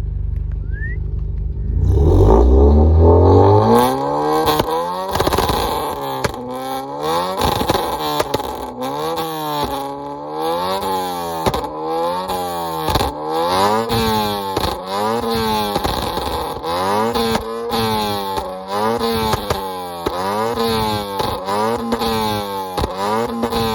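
Honda Civic engine revved through an aftermarket MagnaFlow exhaust: it idles with a low rumble, is revved up once about two seconds in, then is blipped in quick throttle stabs, pitch rising and falling about once a second. A loud exhaust note.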